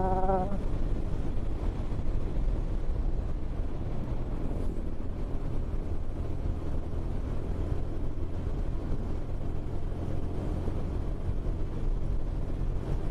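Motorcycle engine running steadily with wind and road noise while riding along, picked up by a helmet-mounted action camera's external mic.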